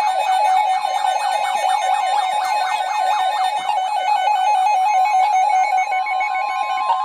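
Weather radio alert: a steady, high warning alert tone together with receivers' electronic alarms warbling and pulsing rapidly, heralding a special marine warning. The steady tone cuts off at the very end.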